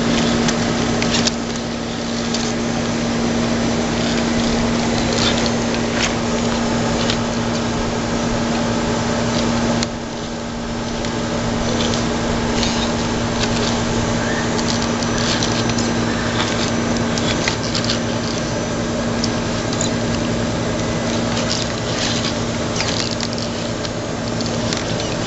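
Electric drivetrain of an Axial AX10-based RC rock crawler giving a steady whine as it creeps over rocks at low speed, with scattered clicks and knocks of the tyres and chassis against stone and wood.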